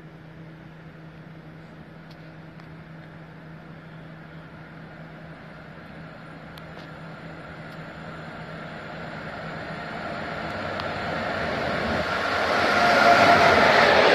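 A freight train of double-deck car carrier wagons approaching on the adjacent track and running through the station. Its rumble grows steadily louder and is loud in the last couple of seconds as the wagons pass close by.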